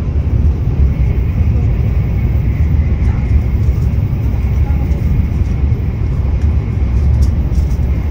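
Cabin noise of a Shinkansen bullet train running at speed: a loud, steady low rumble with a faint high whine over it.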